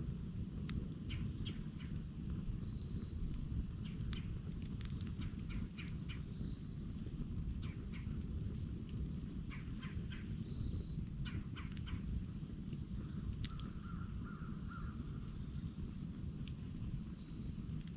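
Wood campfire burning: irregular sharp crackles and pops over a steady low rumble. A faint, short bird call comes in about fourteen seconds in.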